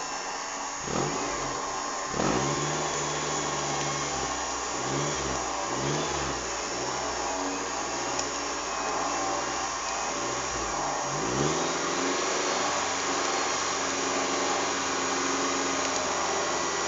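Off-road 4x4's engine running, revved up and down several times, then holding a steady speed for the rest of the time.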